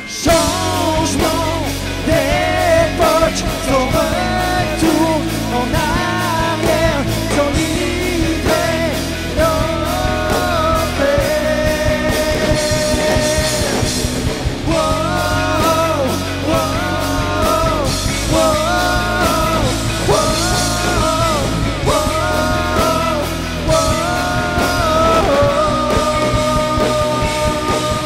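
A rock band playing: sung vocals over guitar, bass guitar and a drum kit.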